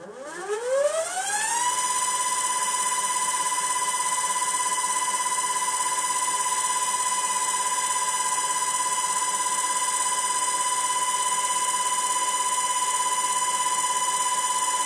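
A 180 W AC servo motor and its 3:1 toothed-belt drive spin a small lathe chuck up to full speed, 1000 rpm at the chuck and 3000 rpm at the motor. The whine rises in pitch for about two seconds, then holds a steady, very noisy high whine. The owner finds it far noisier than he expected from a servo.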